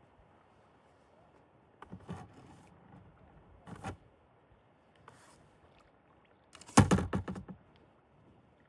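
A kayak paddle and the boat being worked: a few short scrapes and splashes, then a loud quick clatter of knocks against the hull about seven seconds in.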